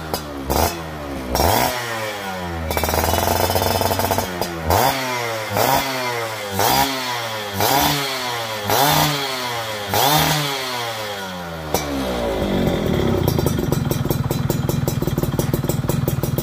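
Yamaha F1ZR's two-stroke single-cylinder engine through an aftermarket Kensae Pro racing exhaust, revved in a run of quick throttle blips about one a second, each rising and falling in pitch, then dropping back to a steady idle about twelve seconds in.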